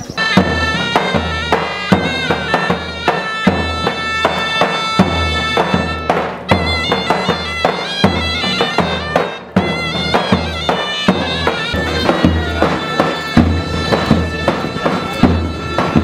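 Traditional folk music: a reed wind instrument playing a melody over a steady drum beat.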